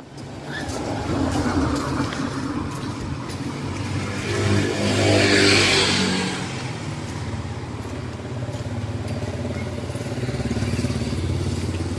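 Road traffic: a steady low engine hum, with a motor vehicle passing close about five seconds in, its engine note and tyre hiss swelling and then fading.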